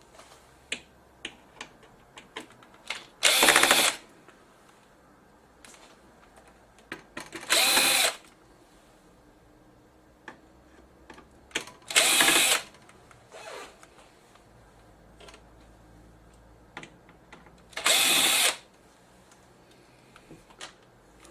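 Electric screwdriver spinning in four short bursts of under a second each, backing out the screws that hold a TV's power supply board, with small clicks and taps of handling between the bursts.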